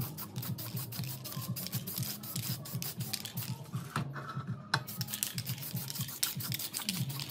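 Aerosol spray-paint can hissing in bursts, with a brief break a little past halfway, over background music with a bass line.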